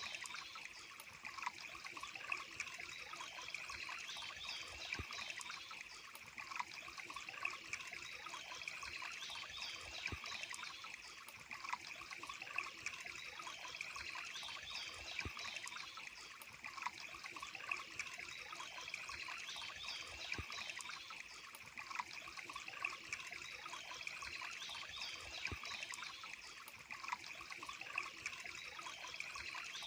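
Water trickling and running steadily, like a small stream or cascade.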